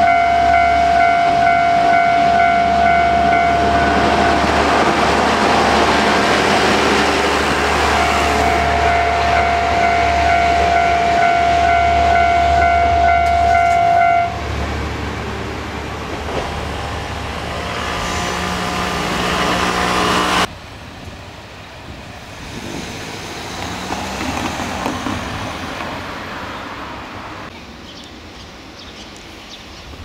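Level-crossing alarm ringing its repeating electronic tone while a Shimabara Railway diesel railcar runs through the crossing. The alarm stops about 14 seconds in and the railcar's engine hum carries on. About 20 seconds in the sound drops abruptly to quieter outdoor ambience.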